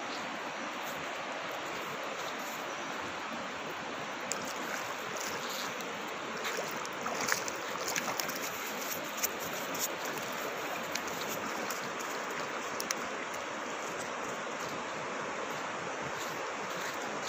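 Steady rushing of a river's flowing water. Through the middle stretch, a scatter of short, sharp splashes and clicks sounds over it.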